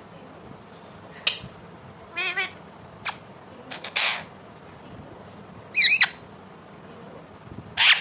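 An Alexandrine parakeet giving a series of short squawks and chirps, about six in all. The loudest come about six seconds in and near the end.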